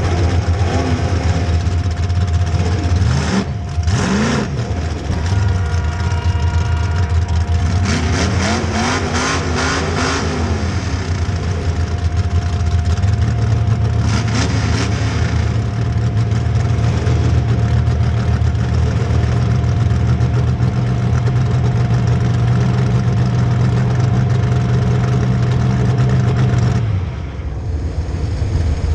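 Demolition derby cars' engines running loudly, revving up and down several times, with sharp bangs mixed in. The engine sound drops off suddenly near the end.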